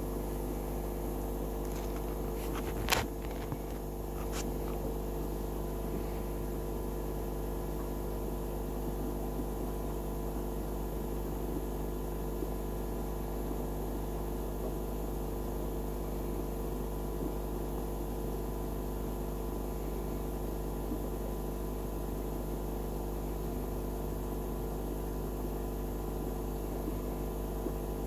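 Steady low electrical hum from running equipment, with a sharp click about three seconds in and a fainter click about a second later.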